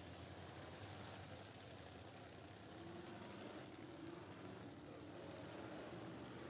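Faint engines of classic dirt-track race cars running at low speed under a caution, a low steady hum with one engine note wavering through the middle.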